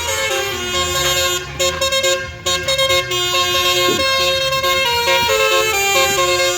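Telolet-style basuri melodic air horns playing a tune: several steady tones sound together and shift pitch in steps, with a brief drop in level about two seconds in.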